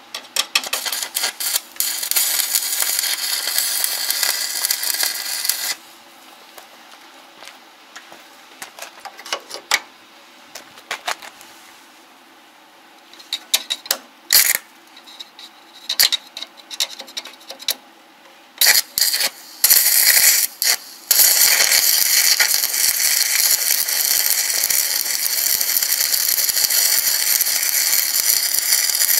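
Stick arc welding on a steel frame: the arc crackles in bursts for the first few seconds, then only brief strikes with quiet gaps, and from about two-thirds of the way through it burns steadily as a bead is run.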